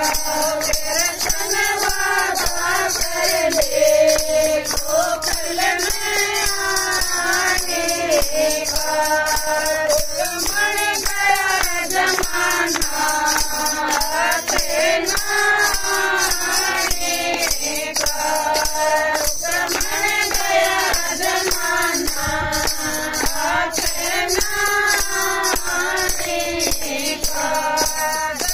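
Group of women singing a Haryanvi bhajan together in unison, with a steady beat of jingling percussion and hand claps.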